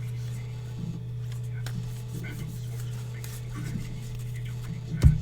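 Steady low electrical hum with faint, soft ticks of trading cards being handled and sorted on a table, then a single low thump about five seconds in.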